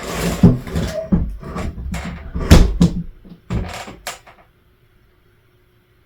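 Demolition clatter: a quick run of knocks and rattles as drop-ceiling pieces are pulled down and fall, with two loudest hits, then it stops about four and a half seconds in.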